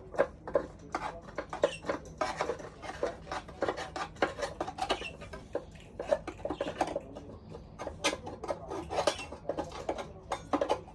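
Baby budgerigar chattering: a rapid, continuous run of short chirps and clicks.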